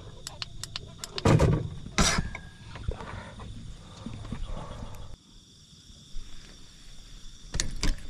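Irregular clicks, knocks and a few louder thumps from gear being handled on a boat deck, the loudest about a second and two seconds in. A steady high-pitched drone of night insects runs behind them.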